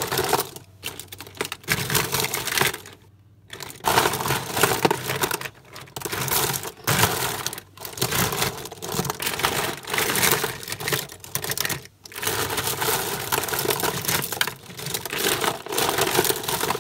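Hard plastic Bakugan toys clattering and rattling against each other as a hand rummages through a tub heaped with them, with a brief lull about three seconds in.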